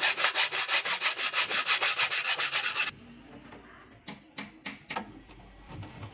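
A thin metal blade rubbed rapidly back and forth across the end of a wooden inlay beading strip, shaping it, at about nine strokes a second. It stops abruptly about three seconds in, followed by a few sharp clicks.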